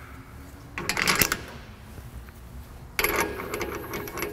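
Steel spacers clinking against each other and the brake lathe arbor as they are slid on by hand: a cluster of metallic clinks about a second in, and a denser run of clinks from about three seconds in.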